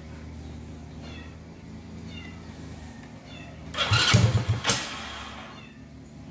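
Small motorcycle-type engine on a DIY mini buggy with a low steady hum, then a loud burst of engine noise about four seconds in that lasts about a second as the throttle is worked.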